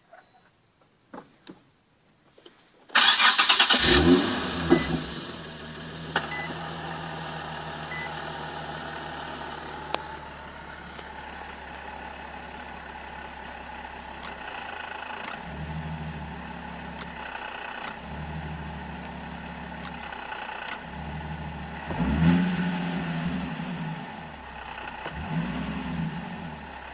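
Nissan 370Z's 3.7-litre V6 being started: a few light clicks, then the starter cranks about three seconds in and the engine catches with a short rev flare before settling to a steady idle. Near the end the throttle is blipped twice, the revs rising and falling each time.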